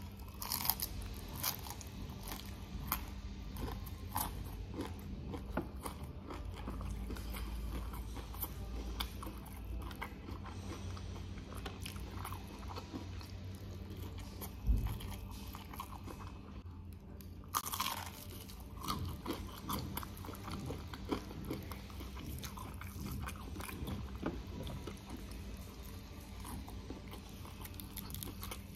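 Close-miked biting and chewing with many short crunches, typical of crispy fried chicken coating being eaten. A single dull thump about halfway through stands out as the loudest moment.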